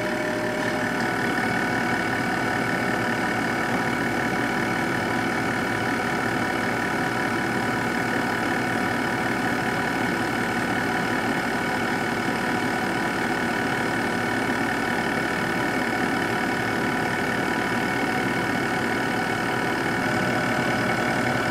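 Window air conditioner running on medium cool: a steady hum of the compressor and fan with a thin, steady whine over it.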